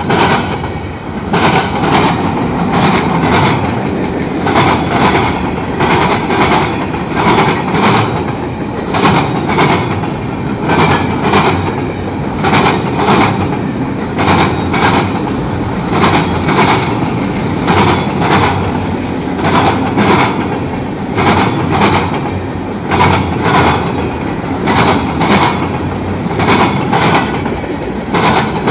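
Train cars rolling past, their steel wheels clicking over the rail joints in a steady rhythm of repeated clicks that pulses about once a second.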